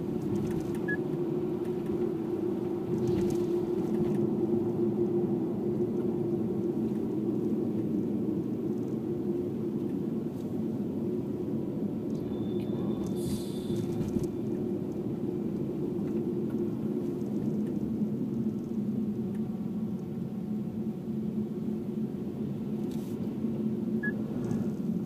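Steady in-cabin engine and road hum of a Subaru Legacy driving in city traffic, with a short high tone about halfway through.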